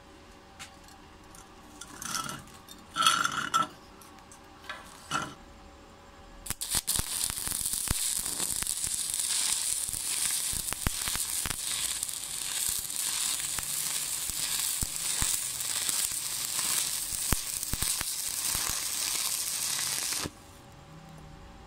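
Stick (SMAW) arc welding on sheet steel. After a few short scratchy bursts, the arc runs from about six seconds in with a steady crackling sizzle for some fourteen seconds, then cuts off suddenly near the end.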